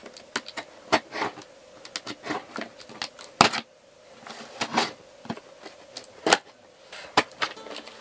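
Scissors snipping and scraping through packing tape and a cardboard box: irregular sharp snips and scratches, with cardboard rustling as the box is pulled open near the end.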